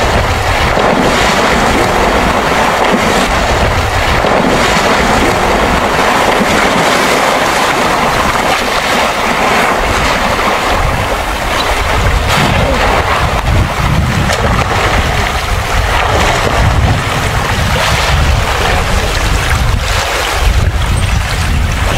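Loud wind noise buffeting the microphone over a steady rush of water, with a low rumble.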